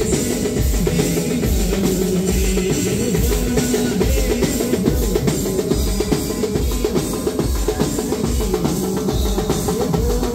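Band music with drums: a steady bass-drum beat under a melody line.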